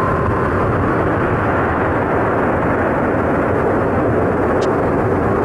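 Boeing 707-123's four Pratt & Whitney JT3C turbojets running as the airliner rolls away down the runway: a loud, steady jet roar. A steady high whine stops about half a second in.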